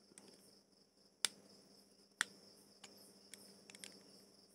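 Sharp, faint clicks and taps of tools and small metal parts on a spinning fishing reel as it is being opened. Two louder clicks come about a second apart, followed by a few lighter ticks. A steady high insect chirr runs behind them.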